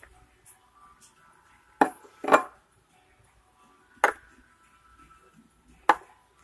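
Four sharp knocks or taps at uneven intervals, the second two close together, over a faint steady hum.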